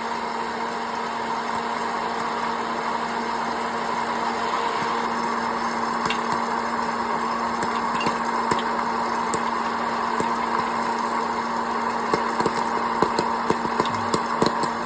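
Hot-air popcorn popper running steadily with a fan hum, with scattered sharp pops of kernels popping that come more often over the last few seconds.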